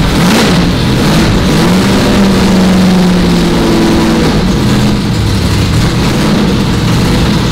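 Plymouth Duster's 340 small-block V8 running on open headers, with no mufflers fitted, being revved. Its pitch climbs and drops a couple of times, holds high for about two seconds in the middle, then settles lower.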